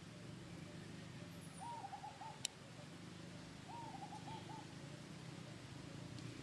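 An animal's hooting call, given twice about two seconds apart, each a short rising note followed by a few quick repeated notes, over a steady low background hum. A single sharp click sounds in between the two calls.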